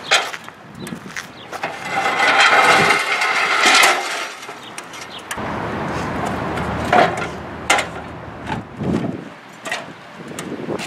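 Metal rattling and scraping as the Mantis attachment of an electric hand truck is driven under a loaded chair cart. This is followed by a steady low hum of the cart's electric drive, with a few sharp metal clanks as the stacked folding chairs are tipped back onto the hand truck.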